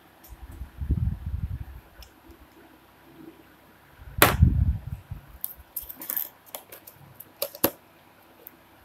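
Handling of a perfume bottle and its cardboard box: a sharp clack with a thud about four seconds in as the bottle is set down on the table, then a run of light clicks and rustles as the box flaps are folded and pressed.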